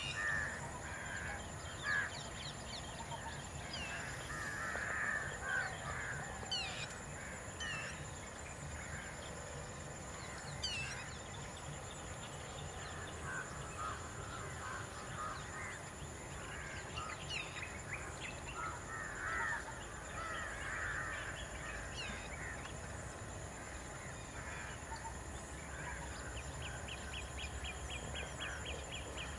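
Wild birds calling in the forest: many short chirps, whistles and caw-like calls overlap over a steady high-pitched hum. Near the end a rapid, evenly repeated run of short notes starts up.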